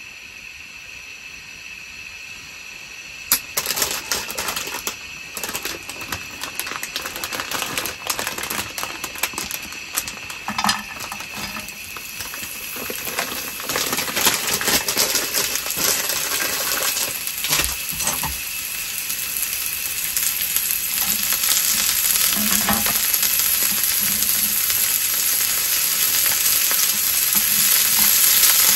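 Frozen spinach frying in oil in a hot ridged grill pan on a gas stove. A sharp click about three seconds in is followed by crackling and spitting, which settles into a steady sizzle that grows louder toward the end. Chopsticks click and scrape against the pan along the way.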